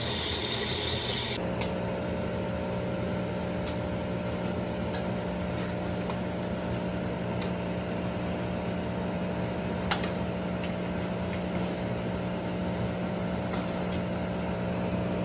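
Nespresso milk-carafe coffee machine at work: a hiss from the milk frother stops about a second and a half in, and the brewing pump then hums steadily while espresso pours, with a few faint clicks.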